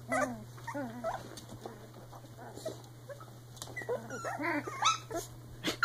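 Three-week-old Icelandic Sheepdog puppies playing together, giving many short whimpering calls and little growls, busiest about a second in and again from about four seconds. A sharp knock near the end is the loudest sound.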